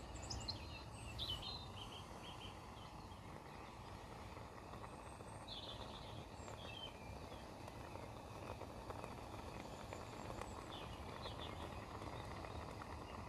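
Gas canister camping stove burning under a pot of chicken and prawns cooking away, a steady quiet hiss, with a few faint high chirps here and there.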